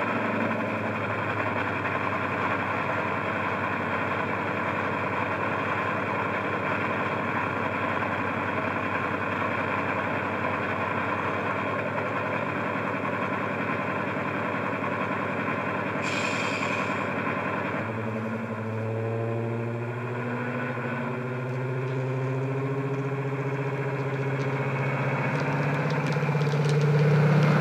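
Sound-fitted Bachmann Class 55 Deltic model playing its Napier Deltic twin-engine sound through an EM2 speaker: the engines idle steadily, a short hiss comes about 16 seconds in, then the engine note climbs and grows louder as the loco pulls away.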